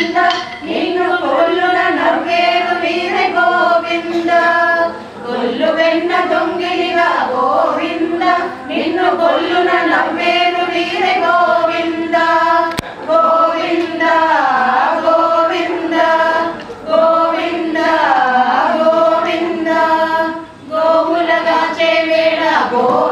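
A group of women singing a devotional song together in unison, unaccompanied, in phrases with brief pauses for breath.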